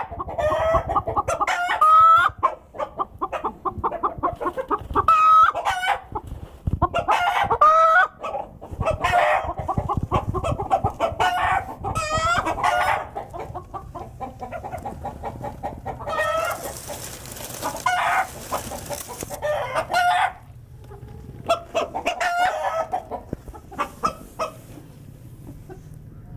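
Hens cackling and clucking in repeated loud, rising-and-falling squawks: the egg song that goes with a hen laying an egg. A few seconds of hiss come partway through, and the calls die down near the end.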